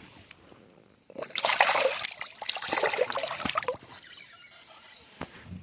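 Water splashing as a small catfish is released back into the water, a burst of about three seconds starting about a second in.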